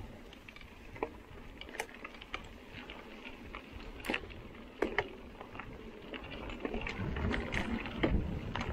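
Mountain bike rolling over a dirt and gravel trail: tyres crunching, with scattered sharp ticks and rattles from stones and the bike. Low wind rumble on the microphone grows louder near the end.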